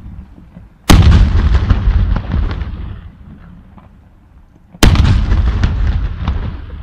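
Two aerial firework shells bursting about four seconds apart, each a sharp bang followed by a long rumbling tail that dies away over a couple of seconds.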